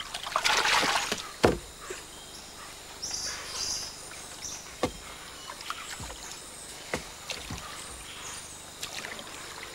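Water splashing as a large pirarucu (arapaima) is hauled over the gunwale of a wooden dugout canoe, then a sharp knock on the hull about a second and a half in. A few lighter wooden knocks follow at intervals of about a second.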